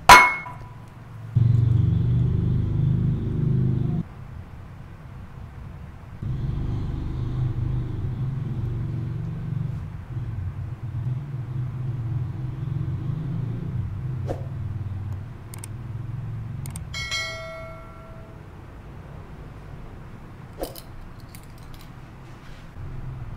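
A stainless steel bowl clinks against a ceramic bowl with a short ring as it is lifted off molded rice. A low rumble then comes and goes, and later there is another brief ringing clink.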